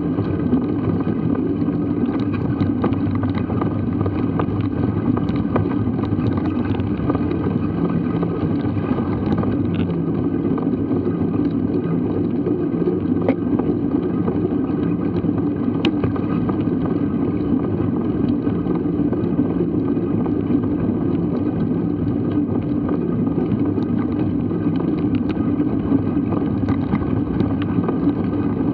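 Steady wind rumble on a bike-mounted action camera's microphone, with mountain bike tyres rolling over a bumpy grass-and-dirt track. Small rattles and clicks from the bike come through all along.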